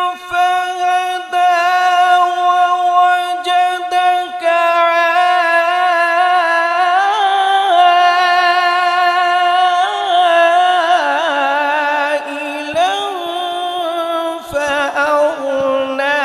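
A male Quran reciter chants in the melodic tajweed style. He holds one long, high note for several seconds, then winds through ornamented runs around the middle, and settles onto lower held notes near the end.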